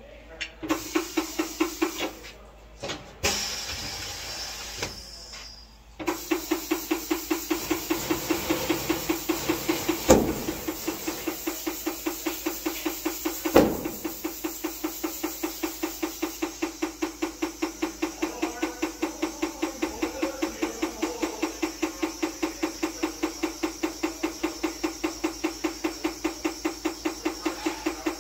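Tire-changer machine running while a tire is mounted on a rim: a steady hum with fast, even ticking, about four a second, that cuts out and restarts twice in the first few seconds and then runs on. Two sharp knocks stand out, about ten and thirteen seconds in.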